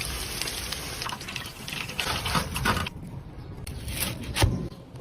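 Liquid splashing and pouring, with a few clattering knocks partway through and one sharp knock near the end.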